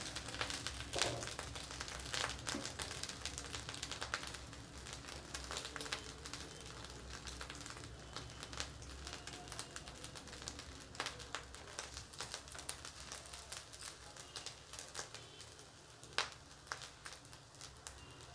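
Vegetable fried rice sizzling and crackling in a hot wok over a high flame, with scattered sharp ticks from grains popping in the oil.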